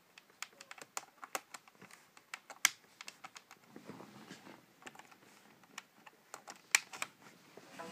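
Irregular clicks and taps of a phone and its USB cable being handled and plugged in, with two louder clicks, one about two and a half seconds in and one near the end, and a short rubbing about four seconds in.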